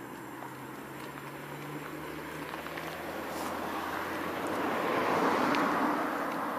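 A vehicle passing by: a rushing noise that swells to its loudest about five seconds in and then fades.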